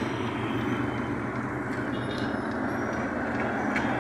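Steady low rumble of a running vehicle engine with road traffic noise.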